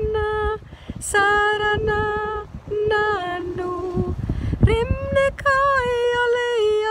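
A woman singing a mantra in long, held notes that slide from one pitch to the next, with short breaks for breath; near the end she rises to a higher note and holds it.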